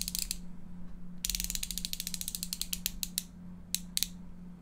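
Small ratcheting hand tool being twisted in the hands, giving runs of fast ratchet clicks. A short burst comes at the start, a longer run about a second in slows into separate clicks, and two lone clicks come near the end.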